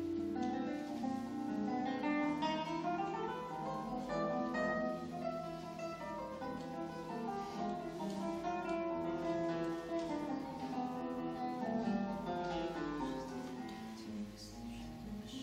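Solo classical guitar with nylon strings, fingerpicked: a continuous run of melody notes over held bass notes, growing softer near the end.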